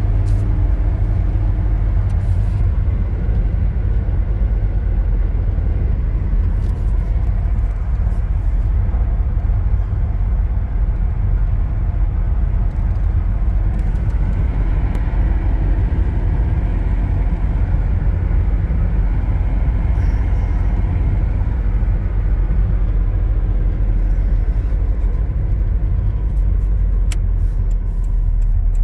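A 2000 Nissan Frontier XE pickup being driven, heard from inside the cab: a steady low rumble of road and tyre noise with its KA24DE four-cylinder engine running evenly underneath.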